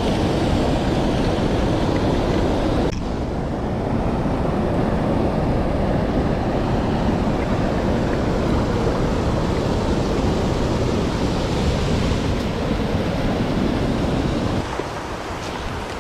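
Rushing mountain-stream water, a steady loud wash with no pitch. The level drops suddenly about three seconds in and again near the end.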